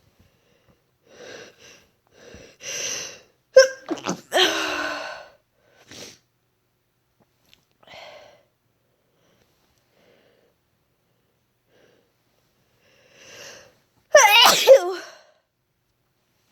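Two induced sneezes. Short catching breaths build to a loud sneeze about four seconds in. After a long pause, another breath leads to a second loud, voiced sneeze near the end.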